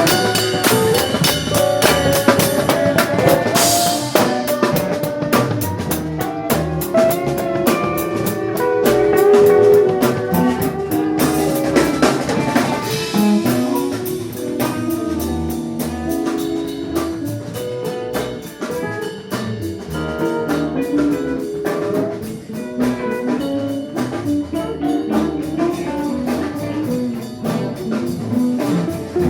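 Live band jam: a drum kit keeping a steady beat, with cymbal crashes, under guitar and other pitched instruments playing a loose, jazzy groove.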